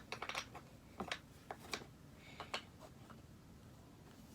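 Faint, irregular light taps and clicks of small objects being handled, a few a second, thinning out towards the end.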